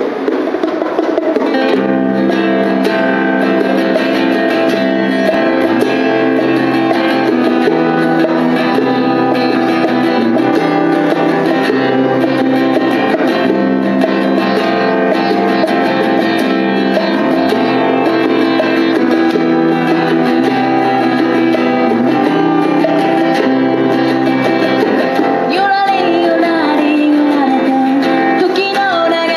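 Live acoustic music: a strummed guitar over a low bass line that changes every second or two, with a voice singing near the end.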